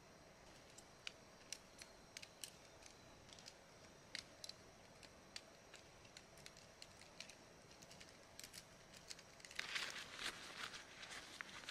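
Faint, scattered small clicks and ticks of camping gear being handled during packing up, then a louder stretch of rustling from about nine and a half seconds in.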